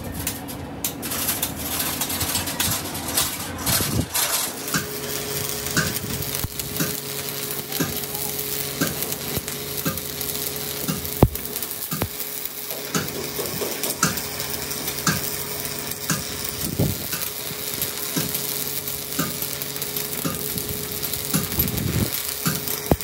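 Stick (arc) welding on a steel truck axle tube: the arc crackles and sizzles steadily as a bead is laid around the repaired joint.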